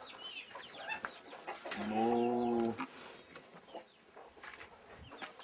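A cow gives a single steady moo about two seconds in, lasting about a second, with chickens clucking and small chirps in the background.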